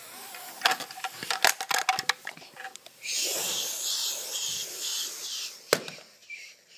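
Handling noise from a camera being fumbled right at the microphone: a quick run of clicks and knocks, then a loud hiss lasting about three seconds, cut off by one sharp click.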